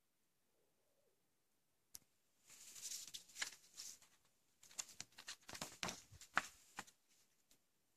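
Glossy paper DVD insert booklet being handled: a sharp click about two seconds in, then two stretches of paper rustling and crackling as the booklet is picked up, opened and pressed flat.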